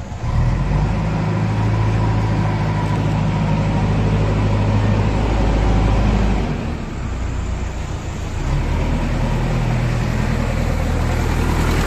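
JCB 3DX backhoe loader's diesel engine running as the machine drives up close. The engine sound dips briefly just past the middle, then comes back up.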